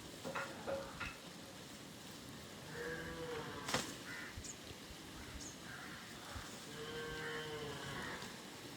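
A cow mooing twice, each call drawn out for about a second, with a sharp crack partway through the first call.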